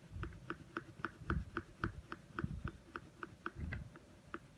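Quick back-and-forth colouring strokes of a blue colour on paper, scratching about four or five times a second, with soft dull knocks now and then.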